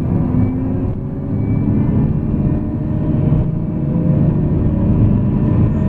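Scania K440 coach's diesel engine running steadily under way, with engine tones that drift slowly upward in pitch.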